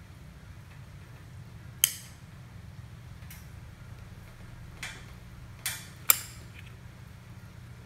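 Hand caulking gun clicking as its trigger is squeezed to push out a bead of sealant: five sharp clicks spaced irregularly, the loudest about two seconds in and about six seconds in.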